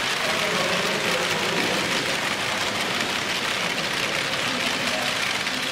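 Model freight train rolling past at close range: the steady running noise of its wagons' wheels on the track.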